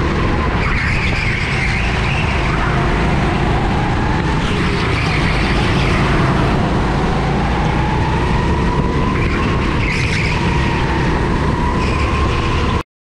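Go-kart engine heard on board at racing speed, its note dipping and rising again several times as the kart slows for corners and accelerates out; the sound cuts off abruptly near the end.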